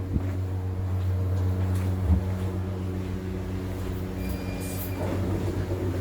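A steady low mechanical hum made of several evenly spaced tones, with a dull knock about two seconds in and a faint short high beep about four seconds in.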